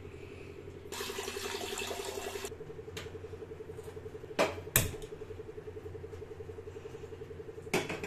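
Water hissing into a steel saucepan for about a second and a half, then stopping sharply. A little later come two sharp clicks as the gas burner is lit, and near the end a clunk as the pan is set on the burner grate. A steady low hum runs underneath throughout.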